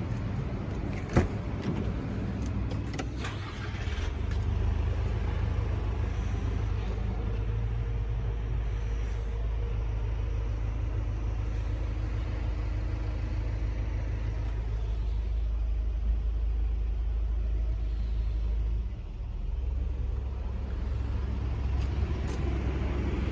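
Motor vehicle engine running steadily with a low rumble, and a sharp click about a second in.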